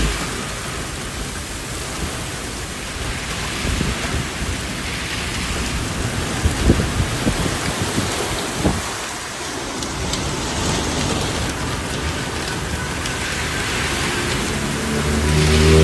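Heavy rain pouring steadily, with a few sharper drips or splashes in the middle. A low rumble swells near the end.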